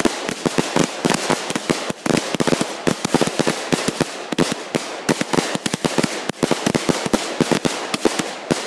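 Two Gorilla Warfare fireworks cakes firing together as a finale: a rapid, unbroken barrage of sharp bangs, several a second, with crackling between them.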